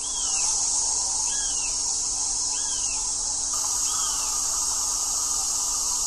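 Steady high insect buzz, a summer chorus of cicadas or crickets. Over it a short rising-and-falling chirp repeats four times, roughly every second and a bit.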